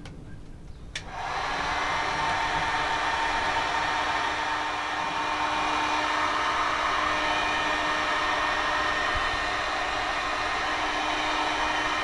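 Red 2000 W electric heat gun switched on about a second in, then running steadily: its fan blows with an even rushing noise and a steady hum. It is shrinking heat-shrink sleeving onto a temperature probe cable.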